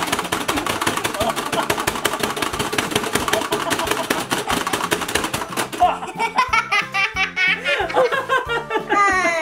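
Rapid plastic clicking as two players hammer the buttons of a Pie Face Showdown toy for about six seconds. The arm then swings, and a man and a boy break into laughter over background music.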